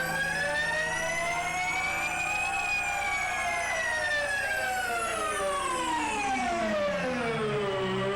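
A siren-like electronic tone, rich in overtones, sweeping slowly up for a couple of seconds, then gliding down for about five seconds and starting to rise again near the end, over a low steady hum.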